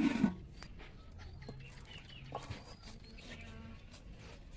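Chickens clucking softly, a few short calls scattered over a few seconds.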